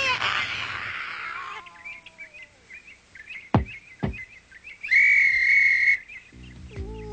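Cartoon sound effects: a hiss that fades away, short high bird-like chirps, two sharp clicks about half a second apart, then a steady high whistle held for about a second.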